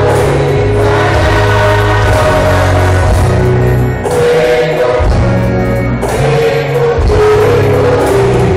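A high school gospel choir singing live over a heavy bass accompaniment amplified through loudspeakers.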